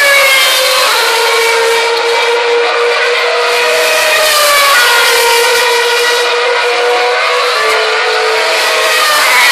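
Formula One cars' 2.4-litre V8 engines running at high revs: a loud, steady high-pitched scream with several tones that glide and step in pitch as the cars pass.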